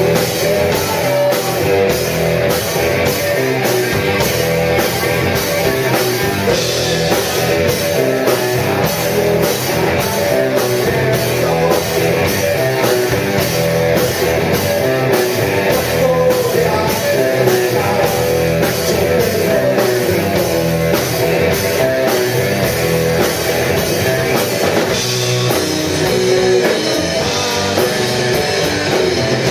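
A live rock band playing loudly: electric guitars and a drum kit keeping a steady beat.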